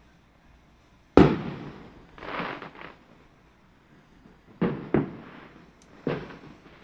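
Fireworks going off: a loud bang about a second in, a rumbling crackle, then three more bangs near the end, each trailing off in echo.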